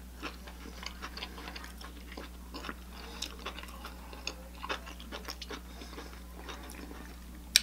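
A person chewing a mouthful of food close to the microphone, with faint irregular wet mouth clicks. A low steady hum sits underneath, and a single sharper click comes near the end.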